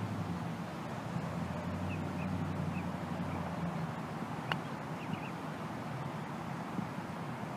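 A single crisp click about four and a half seconds in: an 8 iron striking a golf ball in a short bump-and-run chip.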